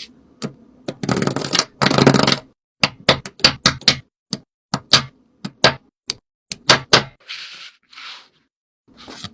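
Irregular sharp clicks and taps from small objects being handled, with a longer rustling scrape about a second in and two short hisses near the end.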